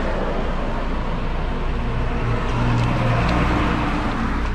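Street traffic: a motor vehicle driving past, its engine note swelling and loudest about two to three seconds in, over a steady traffic noise.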